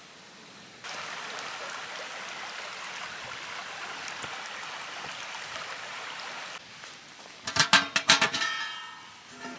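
A steady hiss cuts in about a second in and stops abruptly about two-thirds of the way through. Then comes a quick run of sharp, ringing clinks of hard utensils or glassware, the loudest sound, near the end.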